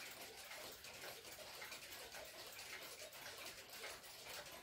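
Faint, steady ticking of a pendulum cuckoo clock's movement.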